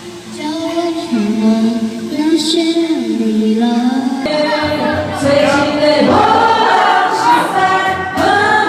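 A song: a woman singing a melody over backing music, which gets fuller and louder about four seconds in.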